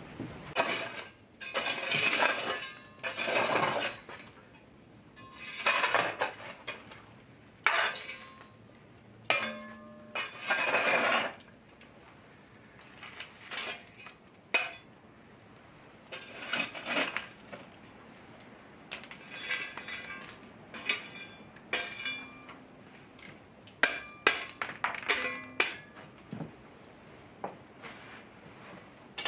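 Long-handled iron fire shovel scraping over a stone hearth and moving glowing embers, in a series of separate scrapes and shovelings. Short metallic clinks and clanks of iron cookware and tools come between the scrapes.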